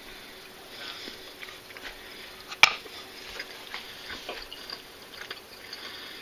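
Cutlery working on a wooden cutting board: a small piece of cooked roast beef is cut off and speared with a fork, with soft scrapes and light ticks. One sharp click about two and a half seconds in is the loudest sound.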